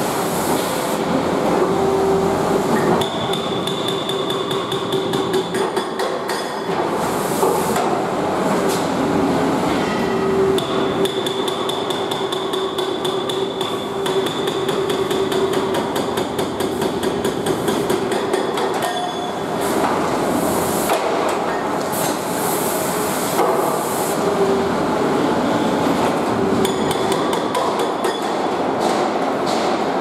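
Hydraulic breaker (hydraulic hammer) on an Atlas wheeled excavator hammering into a brick wall: a fast, continuous rattle of blows. A steady whine comes and goes over it.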